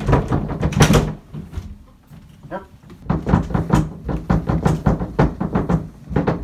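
Closet doors rattling and bumping as they are handled, with loud knocks in the first second. After a short lull, a dense run of quick knocks and thumps starts about three seconds in.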